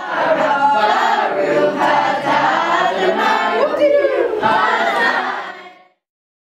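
A roomful of children singing together, loud, many voices on held notes, cutting off abruptly near the end.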